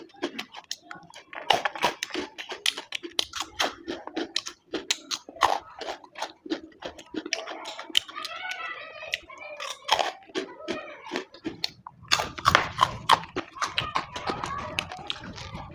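A person chewing food close to the microphone, with crunching and many quick wet mouth clicks and smacks in an irregular run.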